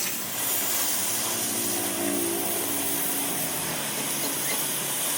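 A power tool running steadily with a hiss, its hum sagging a little in pitch past the middle.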